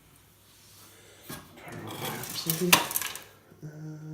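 Metal clinks and knocks of a computer tower's hard drive and drive bay being worked loose by hand, with the loudest knock a little under three seconds in.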